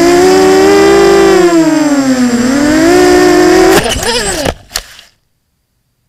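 FPV quadcopter's brushless motors whining, pitch rising and falling with the throttle, heard from the onboard camera. About four seconds in the quad hits the grass with a few knocks, and the motors sputter and cut out.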